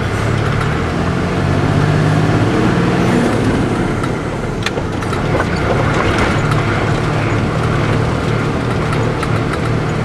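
Propane bobtail tanker truck driving on a gravel road, heard from inside the cab: the engine runs with a steady low hum under the noise of the tyres on gravel. One sharp knock about halfway through.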